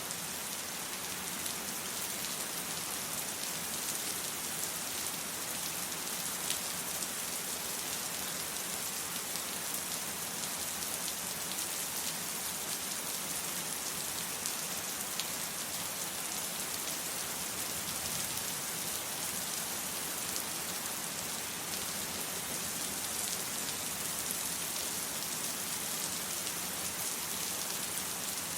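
Steady rain falling on a surface, an even hiss with many fine individual drop patters and no pauses.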